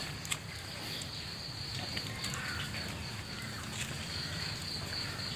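Steady high-pitched insect trill over faint outdoor background noise, with a few small clicks.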